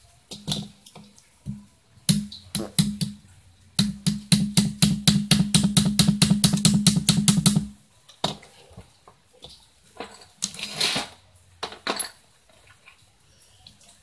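Ratchet wrench clicking on the bolts of a refrigerator compressor: a few scattered clicks, then a fast, even run of about eight clicks a second for some four seconds, followed by a loose clatter of metal.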